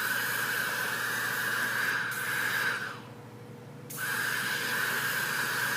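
Steady hissing rush of air from dryer vent cleaning equipment, cutting out for about a second midway and then starting again.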